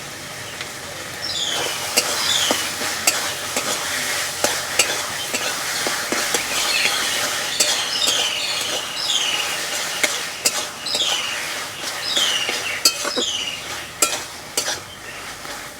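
A spatula stirring boiled taro leaves (kochu shak) with spices in a kadai over the heat, the food sizzling in mustard oil. There are repeated sharp knocks of the spatula on the pan and high scraping squeaks that slide down in pitch.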